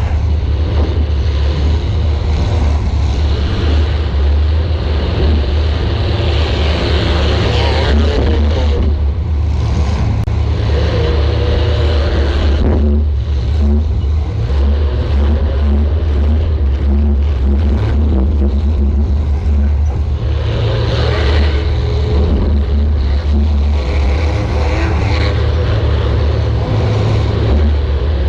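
Compact demolition derby car's engine running and revving hard under load, a loud, continuous low rumble that swells and eases over and over.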